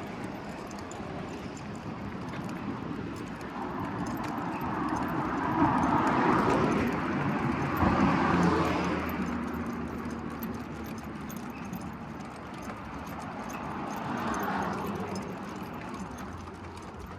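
Street traffic: a passing vehicle swells and fades, loudest about six to nine seconds in, and a second, fainter one passes near the end. Faint light ticks and jingling run under it.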